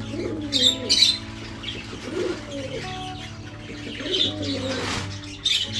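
Flock of budgerigars calling, with short high chirps now and then over lower wavering calls, and wings flapping as a hand net is swung among them to catch a young bird.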